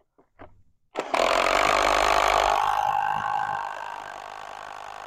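Cordless drill boring a long bit through two lapped wooden boards. It starts suddenly about a second in and runs loud, then after about two and a half seconds settles to a quieter, steady whine.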